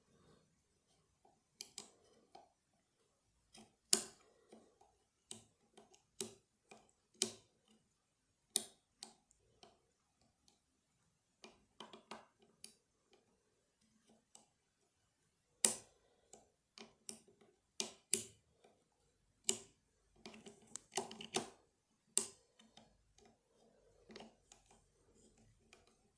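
Small sharp metallic clicks and ticks, irregular with short quiet gaps and a denser run near the end, from a 2-in-1 lever-lock pick working the levers inside a lever lock.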